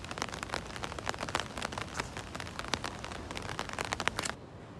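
Rain drumming on a clear plastic umbrella overhead: a dense run of quick, sharp taps that cuts off suddenly near the end.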